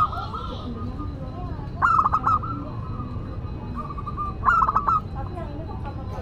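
Zebra dove (perkutut) cooing: short bursts of rapid, stuttering coo notes, two of them about two and a half seconds apart plus the tail of one at the very start. Behind them are a steady low hum and faint chirps of other birds.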